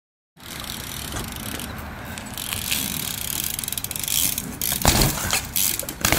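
BMX bike rolling over a concrete driveway: a steady tyre rumble with scattered clicks and rattles from the bike, then two loud, sharp knocks about five and six seconds in as the bike's wheels hit the concrete during a trick.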